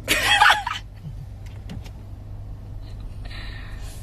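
Steady low hum inside a car cabin. A short loud vocal burst comes at the start, and a brief rustling noise follows about three seconds in.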